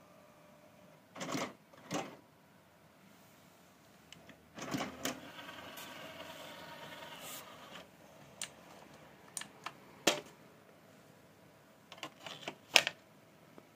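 Toshiba XR-L8D LaserDisc player's motorized disc tray sliding open: a couple of clicks, then a steady motor whir for about three seconds. After that come scattered clicks and knocks as a 12-inch LaserDisc is handled and set onto the tray, with the loudest knock near the end.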